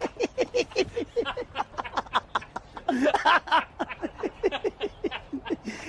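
A man laughing heartily in quick rhythmic bursts, with a louder burst about three seconds in.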